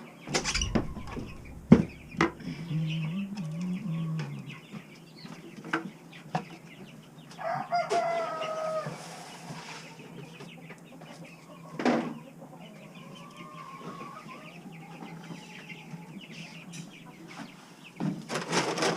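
Barn chickens clucking and calling, with a longer drawn-out call about eight seconds in. Several sharp knocks sound among them, the loudest about two seconds in.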